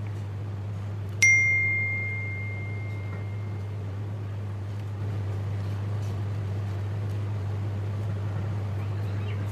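A single bright bell ding about a second in, ringing out for about two seconds, like the bell sound effect of a subscribe-button animation. Under it is a steady low hum.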